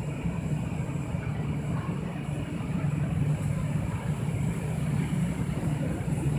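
Toshiba rope-type passenger elevator travelling down its shaft toward the landing, a steady low hum heard through the closed landing doors.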